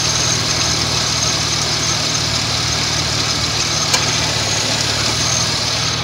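2002 Ford Ranger engine idling steadily with the hood open, a broad rush of fan and engine-bay noise over a low hum, and a single short click about four seconds in.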